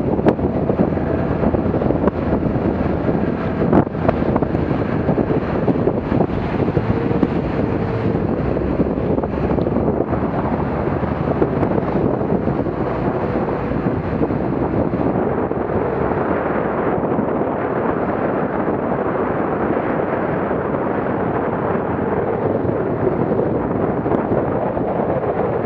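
Heavy wind buffeting the microphone on a Whaler motorboat running through choppy water, with the steady sound of its motor and hull and a few sharp knocks as the bow hits the chop, one about four seconds in.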